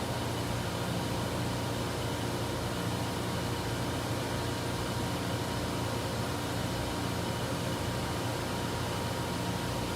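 Froriep CNC vertical boring mill running: a steady machine hum with a thin, constant high whine.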